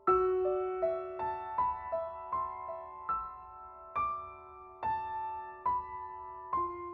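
Piano music: a slow, gentle melody of single struck notes, about two or three a second, each ringing and fading.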